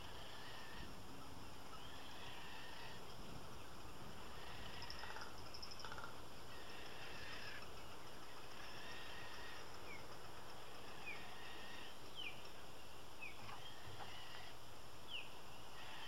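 Birds in a frigatebird breeding colony calling: scattered chattering calls, then a handful of short quick chirps in the second half. A steady hiss runs underneath.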